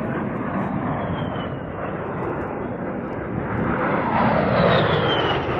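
Aircraft flying past with a steady rushing engine noise that swells to its loudest about four and a half seconds in, with a high whine that slides down in pitch as it goes by.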